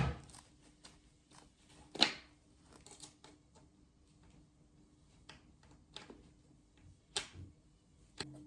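A few light knocks and clicks, indoors-small-room handling sounds, scattered and irregular, the loudest about two seconds in, over a faint steady hum.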